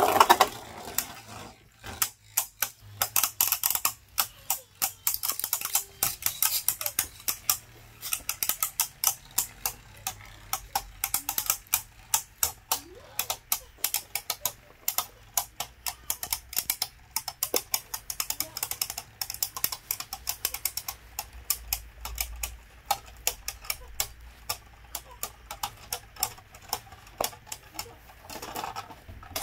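Two Beyblade Burst tops spinning in a plastic stadium and clashing again and again: a fast, irregular clatter of hard plastic-and-metal clicks, loudest at the very start.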